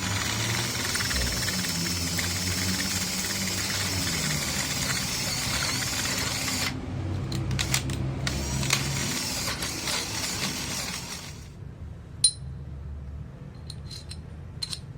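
Cordless drill boring into steel with a freshly hand-sharpened 8 mm bit that grabs hard, a steady grinding run broken briefly about seven seconds in and ending about eleven seconds in. A single metallic clink follows about a second later.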